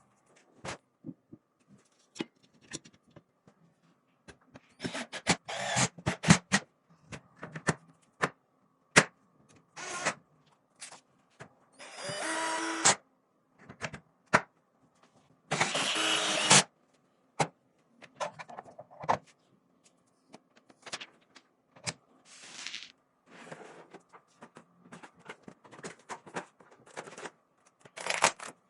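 Computer parts being handled and fitted during a PC build: scattered clicks, taps and knocks, with two louder, longer noisy sounds of about a second each near the middle.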